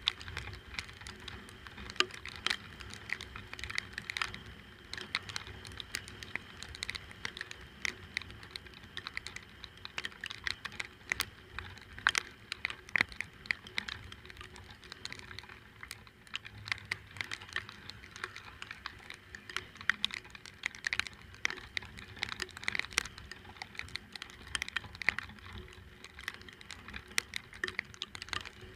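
Rain pattering close to the microphone: a dense, irregular run of sharp ticks, with a faint low rumble underneath.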